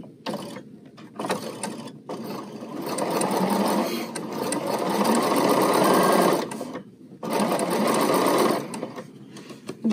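BERNINA sewing machine running a straight stitch, stitching along a fabric-wrapped cord. It starts and stops twice in short spurts, then runs steadily for about four seconds, pauses briefly, and runs again for about a second and a half.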